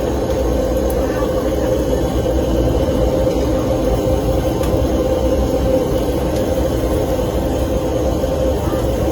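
Steady rumble of vehicle noise with a constant hum, unchanging.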